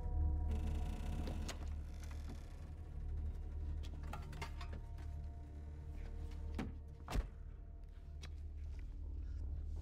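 Tools being handled in a car boot: scattered knocks and clatter over a low steady rumble, with one sharp thunk about seven seconds in.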